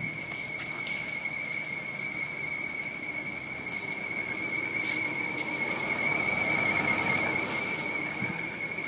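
BMW 745i giving off a weird, high-pitched crying squeal: one steady tone with a slight waver that swells a little about two-thirds of the way in. It is back even though the drive belt and tensioners were just replaced, which the owner takes to rule them out as the cause.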